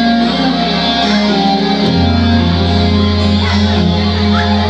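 Music with guitar over a sustained bass line; the bass moves to a lower, stronger note about two seconds in.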